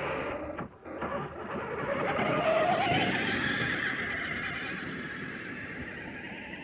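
Remote-control car's electric motor whining as it drives over icy pavement on a low battery. The sound swells to its loudest about three seconds in and then fades.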